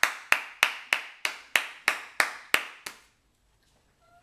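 One person clapping his hands in a steady rhythm, about three claps a second, ten claps in all, stopping about three seconds in.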